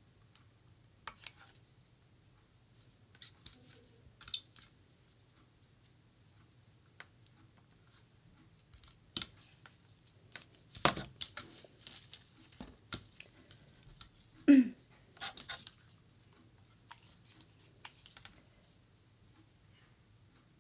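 Sheer lace ruffle ribbon rustling and crinkling in bursts as it is pressed and wound around a mirror's edge with a hot glue gun, with scattered light clicks and taps. The loudest sound is a short knock about fourteen seconds in.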